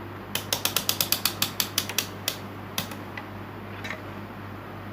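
A rapid run of sharp clicks, about seven or eight a second for roughly two seconds, then a few single clicks: a multimeter's rotary selector knob being turned through its detents to set a voltage range.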